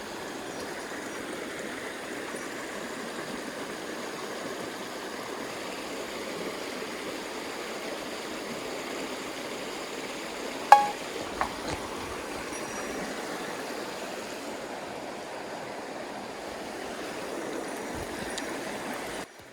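Mountain stream rushing steadily. About eleven seconds in comes a single sharp click, the loudest sound, followed by a fainter one.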